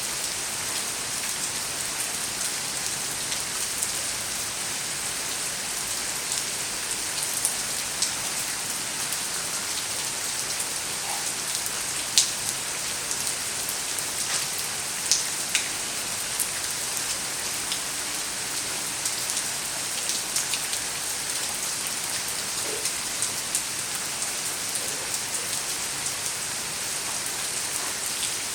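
Steady rain falling, an even hiss with scattered louder single drops ticking close by, the sharpest about twelve and fifteen seconds in.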